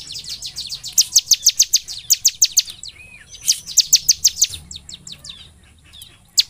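Bar-winged prinia (ciblek) singing its rapid-fire song: fast runs of sharp, high, down-slurred notes, about seven a second, in several bursts with short breaks, thinning out into a pause near the end.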